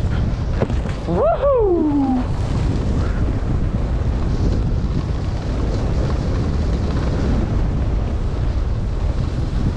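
Wind rushing over a skier's action-camera microphone during a downhill run, a steady loud rumble, with skis running over packed snow. About a second in, a brief pitched sound rises and then falls.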